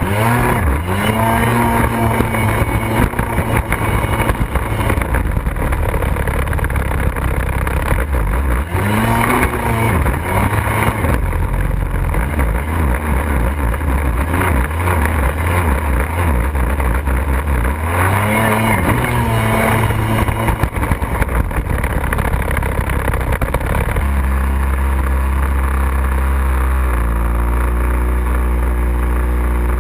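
A Kawasaki X2 stand-up jet ski's two-stroke 750 engine, with a Factory Pipe exhaust, revving up sharply three times under a loud rushing wash. About three-quarters of the way through, it settles into a steady, even drone.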